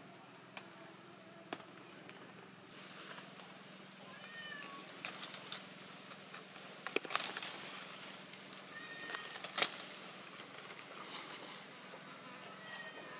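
Leaves rustling and sharp snaps as limes are picked by hand from the tree, the loudest snaps about seven and ten seconds in. Three short, high, falling calls come through, about four, nine and thirteen seconds in.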